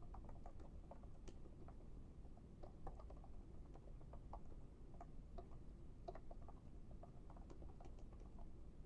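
Faint, muted typing on the seenda ergonomic Bluetooth keyboard's quiet keys: soft, irregular taps with no loud clicks.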